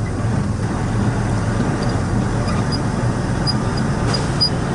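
Dump truck's diesel engine running with a steady low drone, heard from inside the cab as the truck drives over bumpy, dug-up construction ground, with road and cab noise. A few faint high ticks come in during the second half.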